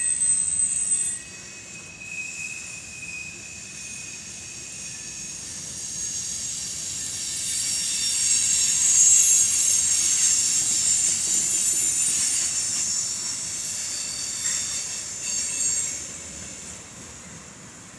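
Freight cars rolling past on steel wheels, with high-pitched wheel squeal over a low rumble. The squeal grows louder through the middle and drops away about sixteen seconds in.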